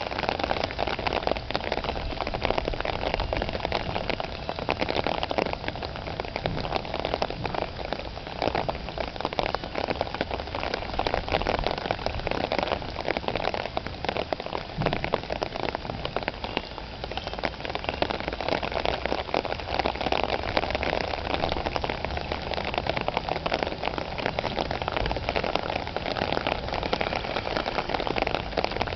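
Steady summer rain falling, a dense, even patter of many drops.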